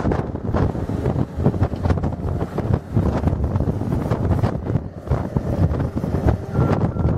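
Cat skid steer loader's diesel engine running as it manoeuvres with a sectional snow pusher, with heavy wind buffeting on the microphone. A faint high tone comes in near the end.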